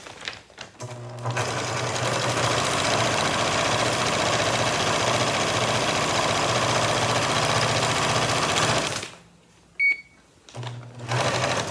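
Computerized electric sewing machine stitching a seam through a plastic feed sack, running steadily at speed for about eight seconds and then stopping. A short electronic beep follows, then a brief burst of stitching near the end.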